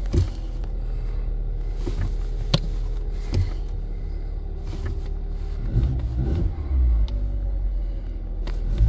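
Car engine revved with the accelerator pedal, a steady low rumble held at one note for the first half, then blipped up and down about six and seven seconds in. A few sharp clicks come through over it.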